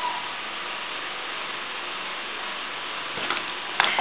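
Steady background hiss, with a few small clicks near the end as a utility knife is set down and short pieces of thin plastic hose are handled.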